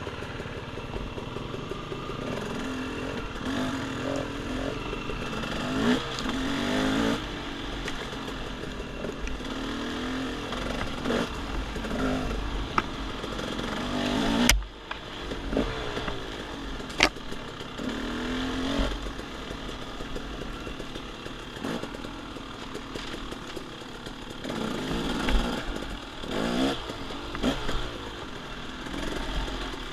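Dirt bike engine revving up and down over and over as it is ridden, with clattering and two sharp knocks, one about halfway through and another a few seconds later.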